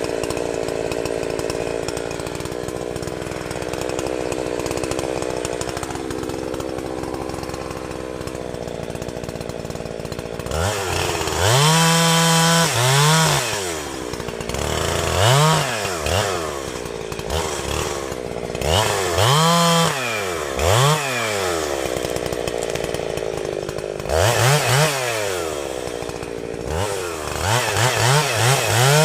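Two-stroke chainsaw running steadily for about ten seconds, then revved up and down over and over, with quick throttle blips near the end.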